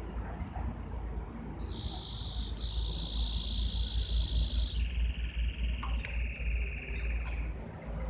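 Canary singing a run of fast, even trills, each held at one pitch, the pitch stepping down partway through. The song starts about two seconds in and stops near the end.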